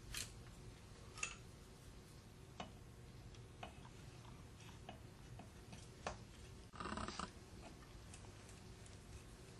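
Faint clicks and light metal taps of a motor's end cap and lead wires being handled, then a short scraping rattle about seven seconds in as the end cap is set onto the motor case.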